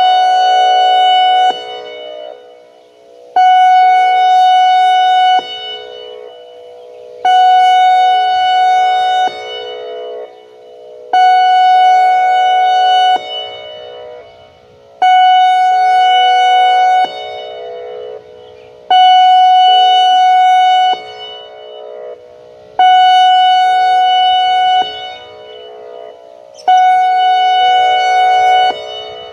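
American Signal E-Class EC4 electronic outdoor warning siren sounding its pulse signal: eight loud blasts of a steady, unchanging tone, each about two seconds long and coming about every four seconds. A fainter, lower tone lingers between the blasts.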